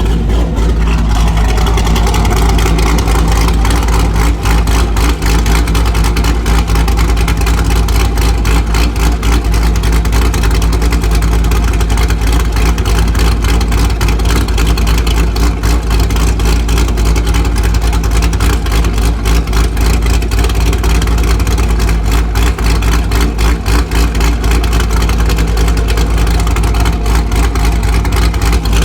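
Chevrolet Corvette engine running steadily through a titanium exhaust, a loud, deep, continuous exhaust rumble that holds at an even pace.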